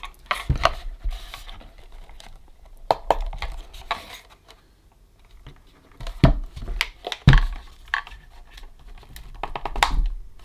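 Handling noise as the chassis of a Roberts RFM3 radio is worked loose from its wooden case: irregular knocks and clicks with some scraping, quieter for a moment about halfway through.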